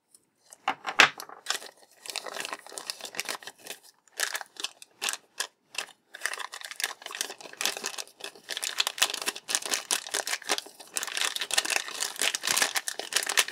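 Thin plastic baggie crinkling and rustling as hands pull figure stands out of it, after a few sharp clicks in the first two seconds as a hobby knife cuts the bag's tape. The crinkling is patchy at first and becomes dense and continuous about six seconds in.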